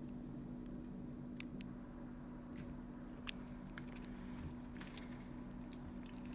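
Faint handling noise: a few scattered small clicks over a steady low electrical hum.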